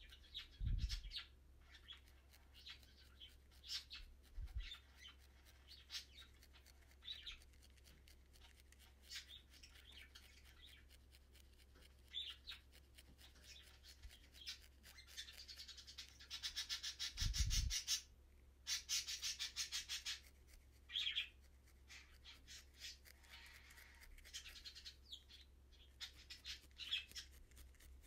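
Felting needle stabbing repeatedly into wool, a faint scratchy crunch with each stroke, coming in quick runs that are densest about halfway through. Two low thumps, one near the start and one midway.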